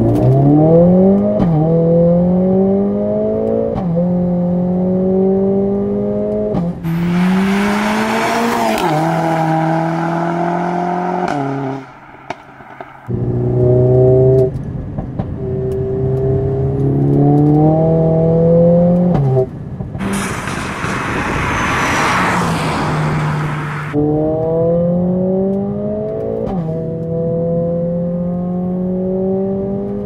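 Stage 2-tuned Mercedes-AMG A45 S's turbocharged 2.0-litre four-cylinder engine accelerating hard through the gears, its pitch climbing and dropping back at each quick upshift. Twice it is covered for several seconds by a loud rushing noise, and about twelve seconds in it goes briefly quiet.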